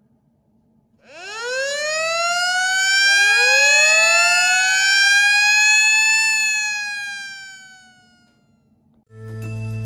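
Wailing siren: two overlapping wails that each rise quickly in pitch and then sink slowly, the second starting about two seconds after the first, dying away about eight seconds in. Guitar music starts near the end.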